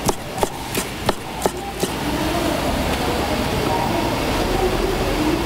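A kitchen knife chopping through soondae onto a wooden cutting board, six quick knocks about three a second, stopping about two seconds in. After that, a steady background of market chatter.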